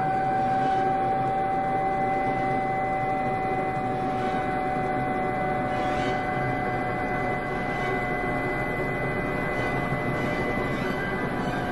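Crop-dusting helicopter heard from on board in flight: steady engine and rotor noise with a constant high whine over it.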